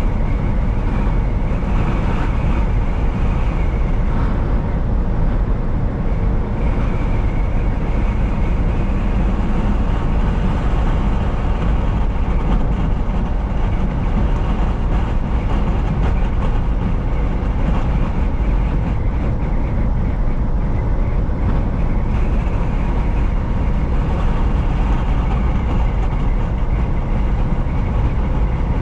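Semi truck running at steady highway speed, a constant engine drone mixed with tyre and road noise, heard from inside the cab.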